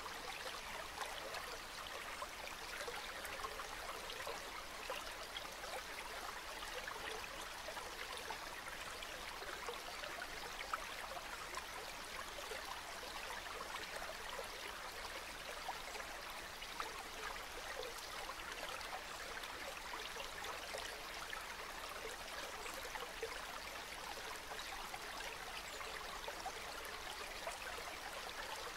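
Calm river water flowing steadily, an even, unbroken rush with fine trickling detail.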